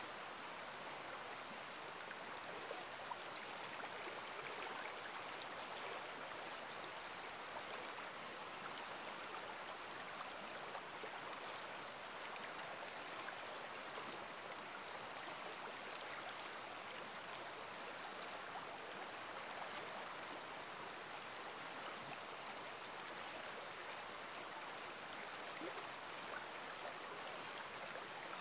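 Steady hiss of water circulating in a reef aquarium, with a few faint ticks through it.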